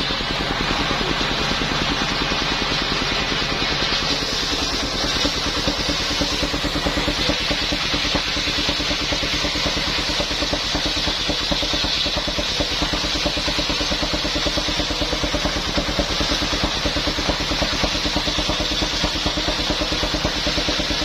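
Engine-driven circular saw machine running steadily while sawing waru timber, the engine pulsing fast and evenly under a high, hissing cutting noise.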